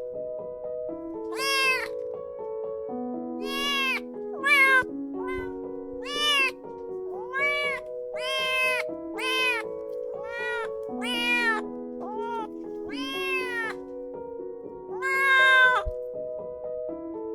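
Kitten meowing about a dozen times in short, high, arched calls, the longest and loudest one near the end. Background music with a slow melody of stepped notes plays throughout.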